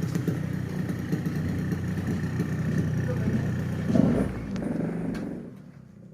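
Yamaha RX-King two-stroke motorcycle engine running steadily, with a brief louder sound about four seconds in, then fading away near the end.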